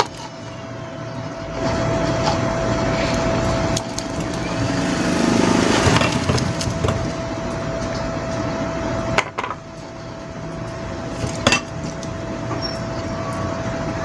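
Light handling clicks and small knocks as hands pull the capacitor wires free of a ceiling fan motor's terminal block, with two sharp clicks late on. Under them runs a steady background hiss and a thin constant whine.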